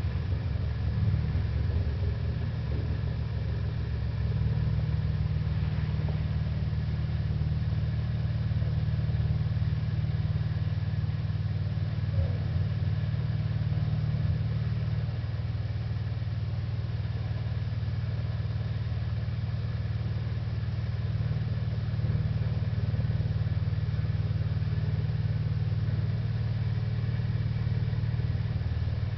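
Excavator's diesel engine running steadily at idle, a constant low hum.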